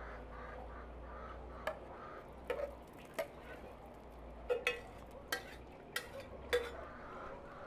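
Metal spoon scraping and knocking cooked rice out of an enamel pot into a metal sieve, with about eight sharp clinks of metal on the pot's rim and the sieve spread through.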